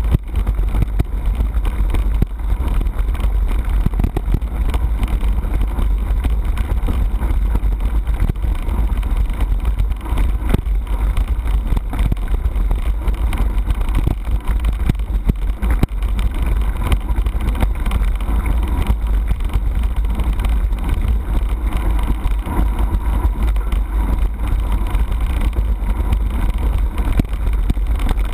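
Mountain bike riding fast over a stony dirt track, heard from a handlebar-mounted camera: a loud, steady rumble of wind buffeting the microphone and tyres on gravel, with many small rattles and knocks from the bike.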